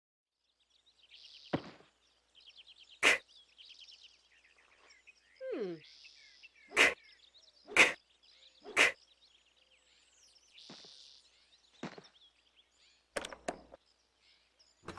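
Sharp knocks on a wooden door, about eight spaced irregularly, with bird chirps between them and one short downward sliding sound about midway.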